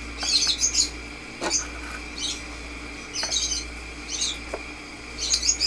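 A small bird chirping in short bursts about once a second, over a steady low hum, with a few light clicks.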